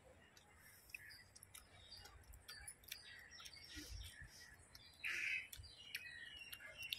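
Faint birds chirping, with small clicks from fingers picking fried fish apart on banana leaves. One louder short burst about five seconds in.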